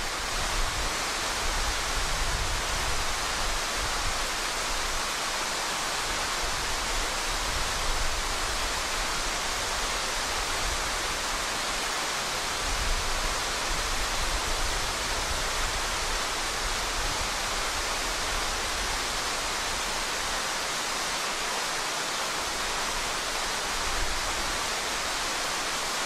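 Steady, loud rushing of a waterfall, loud enough to drown out other sounds.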